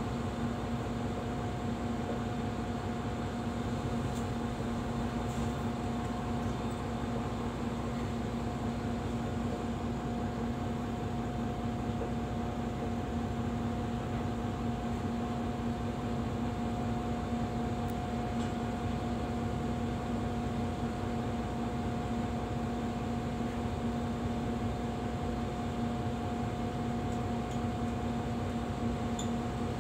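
Mercedes-Benz city bus idling while stationary, heard from inside the cabin: a steady low rumble with a constant droning hum.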